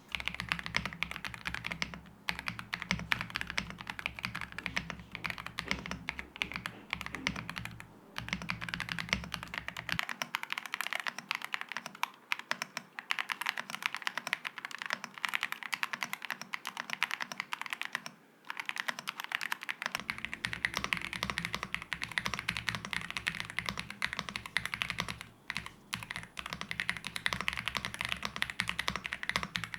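Fast, continuous typing on mechanical keyboards (Royal Kludge RK R75 and AULA F75), a dense run of key clacks with a few brief pauses. The sound changes character about ten seconds in and again about twenty seconds in; the middle stretch lacks the low rumble of the other two.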